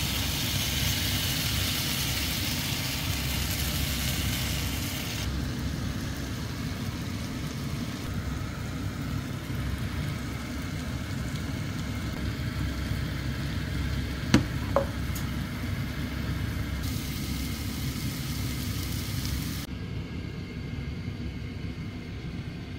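Beaten egg and diced chicken and vegetables sizzling in a frying pan over a steady low rumble, with the sizzle loudest in the first five seconds. About fourteen seconds in come two sharp clicks.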